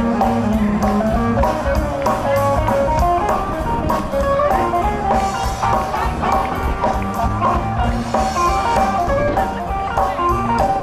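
Live blues band playing an instrumental passage, electric guitar to the fore over bass and a steady drum beat.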